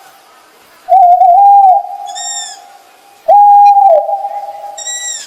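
Owl hooting: two long, level hoots about a second in and about three seconds in. Shorter, higher-pitched calls come between and after them.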